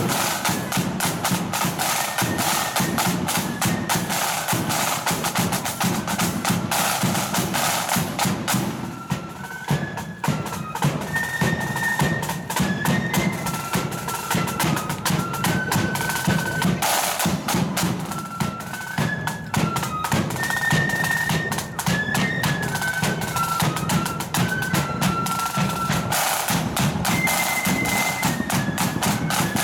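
Marching flute band playing a quick march: a rank of snare drums and a bass drum beat steadily while flutes carry the tune above them. The flute melody stands out more clearly from about a third of the way in.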